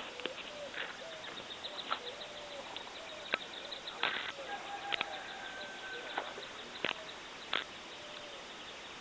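Birds calling outdoors: repeated short, low, cooing notes with a few higher held notes in the middle, amid scattered sharp clicks and knocks.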